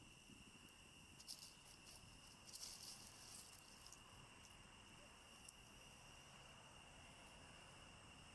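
Faint, steady insect trill in near silence, with a few brief soft crackles about a second in and again around two and a half to three seconds in.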